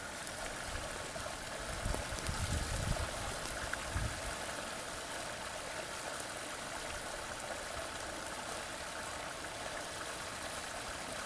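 Creek water running steadily, with a few low rumbles about two to four seconds in.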